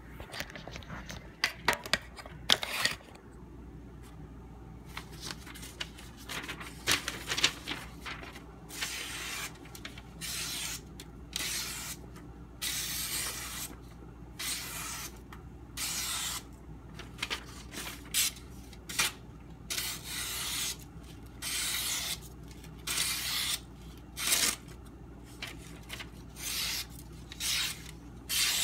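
A steel knife blade drawn in repeated short scraping strokes, roughly one a second with brief gaps between them.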